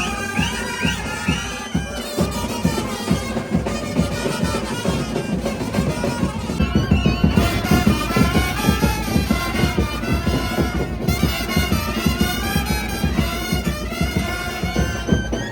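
Indian processional brass band playing a melody on wind instruments over steady drumming; the drumming grows busier and louder about halfway through.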